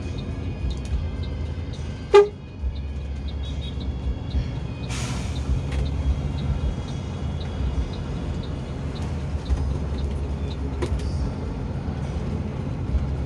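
Mercedes-Benz bus engine and road noise heard inside the cabin, a steady low rumble. About two seconds in comes one short, loud horn toot, and a few seconds later a brief hiss.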